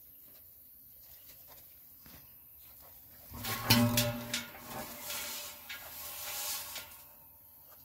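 Baby rhino's body bumping and rubbing against the phone: a few sharp knocks about three seconds in, then scraping and rubbing on the microphone for some three seconds.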